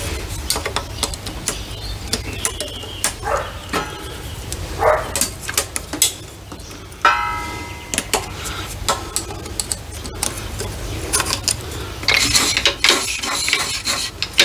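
Steel transmission parts clicking and clinking as circlip pliers work a circlip onto a gear shaft in an open Case 580SK gearbox. There is a brief metallic ring about seven seconds in and a scraping rustle near the end, over a steady low rumble.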